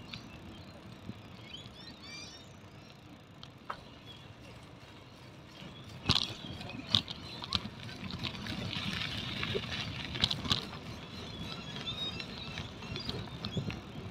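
Bicycle rolling along a paved path: a steady rumble of tyres and wind, with sharp rattles and knocks from the bike over bumps, mostly from about six seconds in. Birds chirp in short calls.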